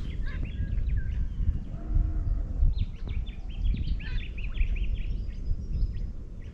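Small birds chirping in a busy flurry of short calls, thickest from about three to five seconds in, over a steady low rumble. A brief low-pitched call sounds about two seconds in.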